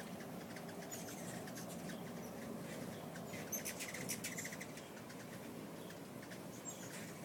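Hummingbirds at feeders: a steady hum of beating wings with short, high, squeaky chip calls, and a quick burst of chattering clicks about halfway through.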